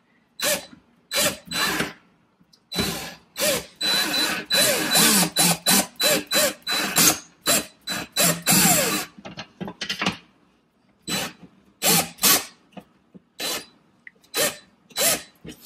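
Black+Decker cordless drill driving a screw into a wooden wall beam, run in short trigger bursts with a longer run through the middle, the motor speed rising and falling under load.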